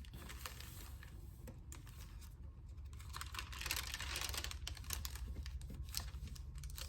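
Thin onion skin paper pages being turned and handled, crinkling and rustling with many small clicks, louder around the middle, over a steady low hum.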